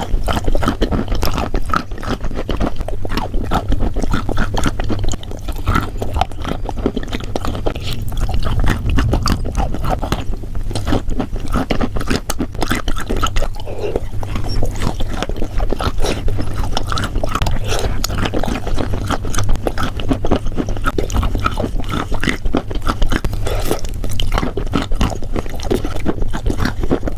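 A person chewing and crunching something crisp close to the microphone: a dense, unbroken run of sharp crackles and crunches.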